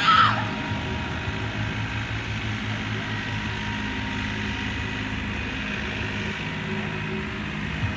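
John Deere compact utility tractor's diesel engine running steadily at low speed while it tows a load. There is a short, loud, high-pitched cry right at the start.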